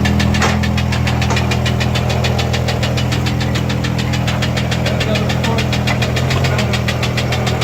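Jeep Cherokee engine idling with a fast, even knock all the way through: rod knock, the sign of a worn connecting-rod bearing.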